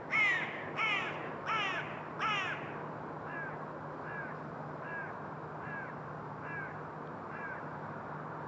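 A bird calling repeatedly: four loud calls in quick succession about 0.7 s apart over the first two and a half seconds, then six fainter calls at the same steady pace.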